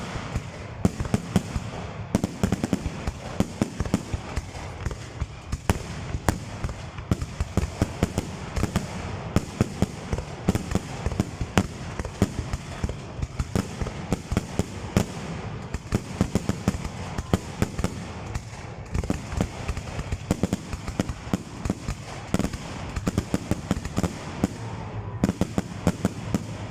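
Fireworks display: a rapid, nearly unbroken barrage of shells bursting, several sharp bangs a second over a steady low rumble.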